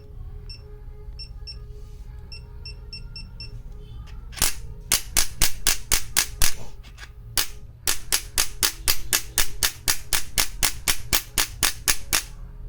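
Electric chiropractic adjusting gun (Biotronix 1200 N): a string of short electronic beeps as its control buttons are pressed to lower the power. About four seconds in it starts firing its thrusts, a fast, even train of sharp clicks about three a second, with one short break partway through.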